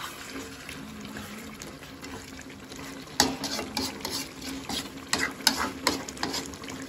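A spatula stirring a thick curry in a metal kadai over the flame. It starts with a soft sizzle, and from about three seconds in comes a run of quick, irregular scrapes and knocks against the pan.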